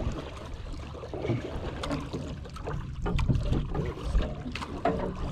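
Water sloshing and wind around a small wooden outrigger boat drifting at sea, with scattered small knocks and clicks from the boat and tackle.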